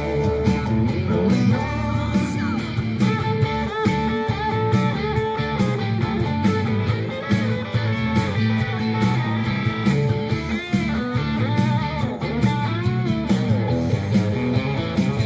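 Electric guitar played live in a southern rock style, with lead notes that bend in pitch, over a steady rock backing with drums.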